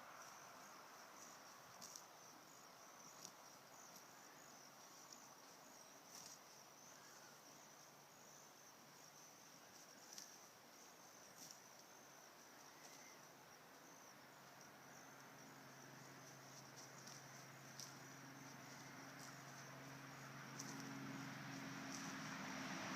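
Faint, steady chirring of crickets, with a few soft clicks scattered through it. A low hum comes in about halfway through and slowly grows louder.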